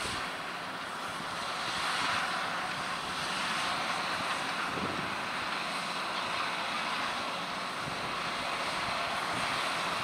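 John Deere 6250R tractor's six-cylinder diesel engine running steadily under load as it pulls a seven-furrow plough through the soil.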